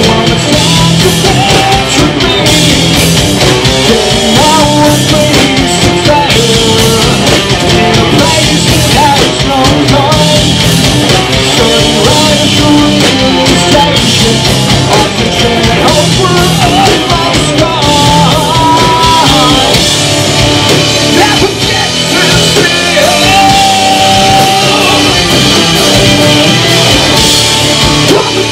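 Live rock band playing loud: electric guitars, bass and drum kit, with a vocalist singing into the microphone.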